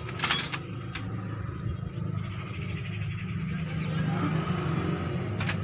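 Old 18 hp stationary diesel engine running with a rapid, steady low beat that grows gradually louder as it picks up after starting. Two sharp clicks cut through it, one just after the start and one near the end.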